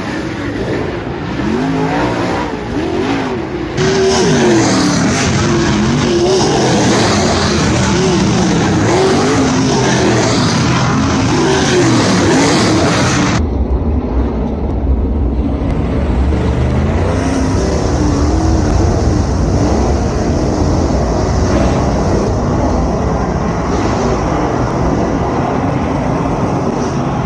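Dirt super late model race cars' V8 engines running flat out around the track, pitch rising and falling as the cars pass and lift for the turns. About 13 seconds in the sound changes to a deeper, steadier rumble of the whole field running together in a pack.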